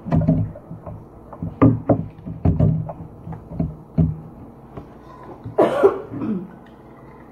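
A person gulping a drink in a run of short swallows over the first few seconds, then one louder, breathy burst lasting about half a second, about five and a half seconds in.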